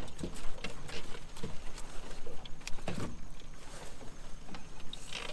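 Irregular clicks, knocks and rattles of a wire-framed, net-covered fishing pot being handled on a boat's gunwale, over a steady low rumble.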